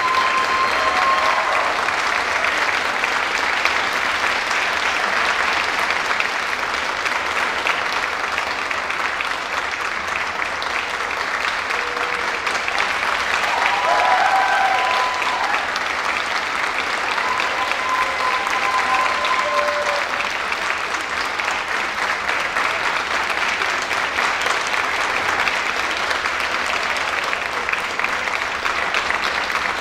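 Audience applauding steadily, with a few brief cheers rising above the clapping.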